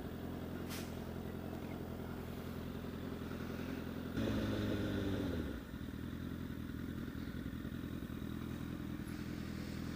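Honda CBR1000RR sport bike's inline-four engine running steadily. About four seconds in a short burst of throttle rises in pitch, then cuts off about a second and a half later.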